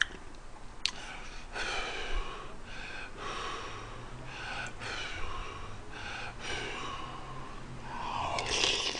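A man eating spicy stew breathes heavily in and out through the mouth in a run of short, hissing breaths. Near the end he makes a longer slurp as he sucks stew from a spoon. There is a sharp click about a second in.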